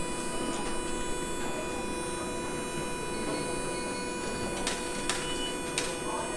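Stopped electric tram's onboard electrical equipment humming steadily as several fixed high tones, with a few sharp clicks about five seconds in.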